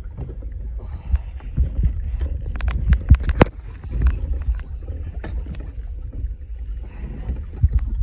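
Wind rumbling on the microphone and water lapping against the hull of a small drifting boat, with a quick run of sharp clicks or knocks about three seconds in.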